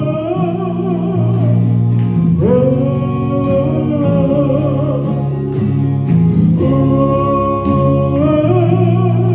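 Gospel singing with band accompaniment: a singer holds three long, wavering "ooh" notes over steady bass notes.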